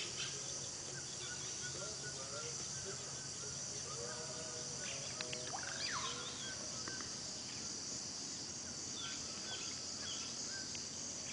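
Steady high-pitched chorus of insects, with a few faint short calls and clicks scattered through it.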